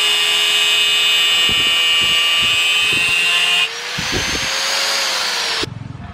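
Angle grinder with a thin cut-off disc cutting chainsaw bar steel, a steady high screeching whine. About three and a half seconds in, the disc leaves the steel and the grinder runs free, its pitch rising slightly, before the sound cuts off suddenly near the end.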